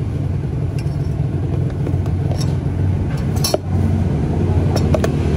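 A few sharp clinks of kitchenware (stainless steel cups, spoons and a plastic container) being handled over a steady low rumble. The loudest clink comes about three and a half seconds in.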